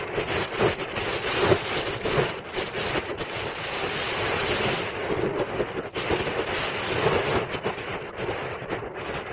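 Wind buffeting the microphone in uneven gusts, swelling and easing throughout.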